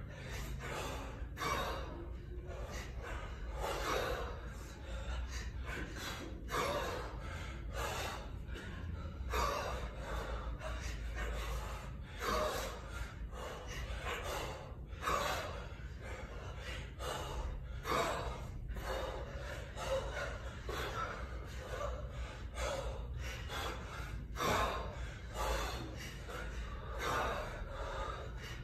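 A kettlebell lifter breathing hard and rhythmically, with quick gasping breaths in and out that keep time with repeated one-arm overhead lifts.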